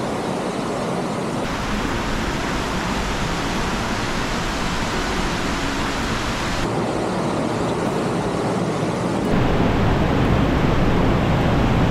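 Mountain stream rushing over rocks in a gorge: a steady whitewater rush that turns louder and deeper about nine seconds in, at a cascade pouring through a narrow rock channel.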